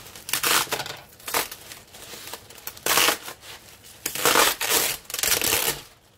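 Clear plastic bubble-wrap packaging crinkling and rustling in a series of separate bursts as it is handled and pulled off a rolled package.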